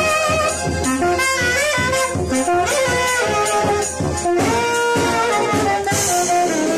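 Brass street band playing: saxophone and brass carry a lively tune over a regular pulsing bass. About four and a half seconds in, the band lands on a long held final chord.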